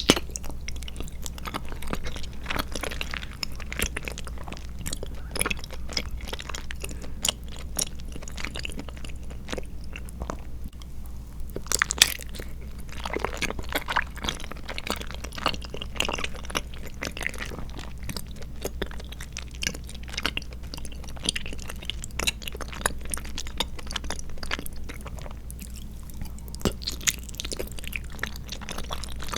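Close-miked chewing of tapioca pearls and milk-tea jelly: a dense run of irregular wet mouth clicks, with a sharper click about twelve seconds in.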